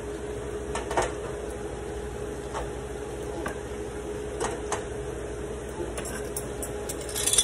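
Glass bowls and a fork and spoon knocking and clinking as they are handled and set down, a few light knocks with the loudest cluster near the end, over a steady hum.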